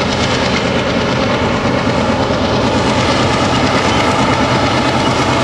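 MLW MX636 diesel-electric locomotive running steadily under load as it hauls a freight train across a steel trestle viaduct, its diesel engine hum mixed with the noise of wheels on the rails.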